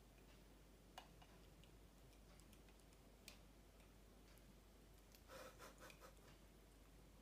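Near silence: room tone with a couple of faint single clicks, then a short spell of soft rustling about five seconds in.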